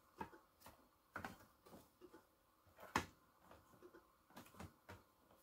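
Near silence with a few faint, irregular clicks from the Apple II floppy disk drive as it writes a Locksmith disk copy. The loudest click comes about three seconds in.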